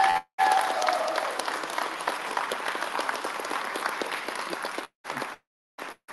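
Audience applause, a dense patter of many hands clapping that dies away about five seconds in.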